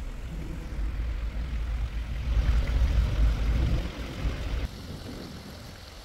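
Wind buffeting the microphone in a deep, uneven rumble, louder in the middle and easing off near the end, over the hiss of water running down a small stepped cascade.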